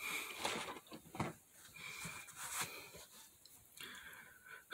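Quiet rustling and brushing of clothing and a baseball cap being pulled on close to the microphone, with a few short taps.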